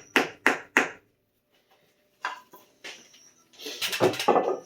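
A cylinder sleeve being tapped down into the engine block, its O-ring seals pushing into the bore: four quick knocks, then a couple of single knocks, and a denser run of knocking and scraping near the end.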